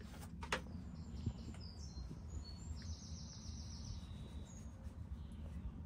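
Outdoor ambience: a steady low rumble with small birds chirping high and quick from about two seconds in. Two sharp clicks come near the start.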